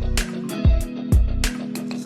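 Background music with a steady electronic beat: a deep kick drum about twice a second and crisp high percussion over sustained melodic notes.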